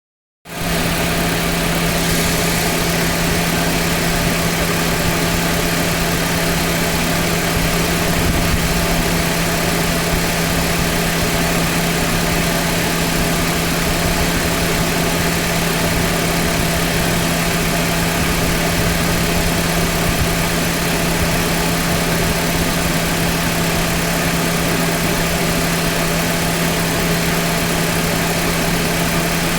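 Car engine idling steadily with the air conditioning running, a constant hum with one strong low note under a noisy rush, starting suddenly about half a second in.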